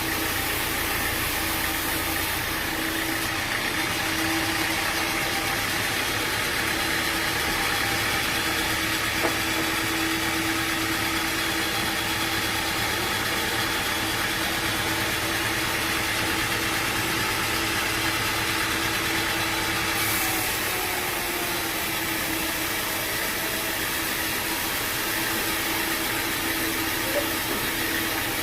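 Sawmill machinery running steadily: a continuous mechanical drone with a steady hum and hiss.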